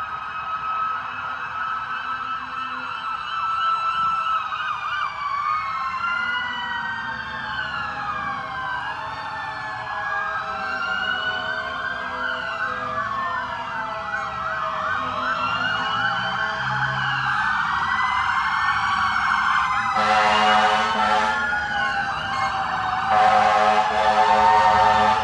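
Several emergency-vehicle sirens from passing fire, police and ambulance vehicles wailing at once, their pitches sweeping up and down and overlapping. Near the end come two long horn blasts.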